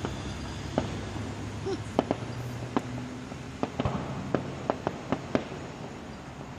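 Fireworks going off: a dozen or more sharp bangs and crackles at irregular intervals, bunched most closely about halfway through, over a steady low hum.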